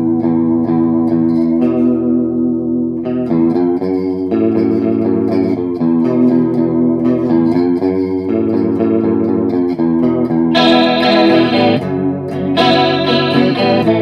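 Electric guitar played through an Electro-Harmonix Small Clone analog chorus pedal: ringing chords with a wavering chorus, changing every second or two. From about ten seconds in it gets louder and brighter.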